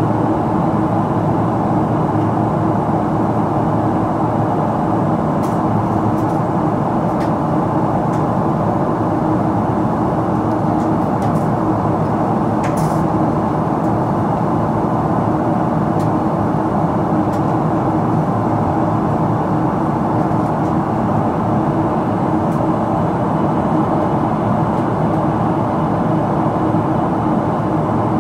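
Steady in-flight cabin noise inside a Boeing 777-300ER with GE90 engines: an even rush of airflow and engine drone with a low steady hum. A few faint clicks sound around the middle.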